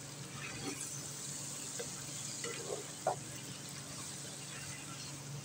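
Chicken and fresh cream sizzling gently in a non-stick karahi while being stirred with a spatula, with a few soft scrapes of the spatula against the pan about two to three seconds in.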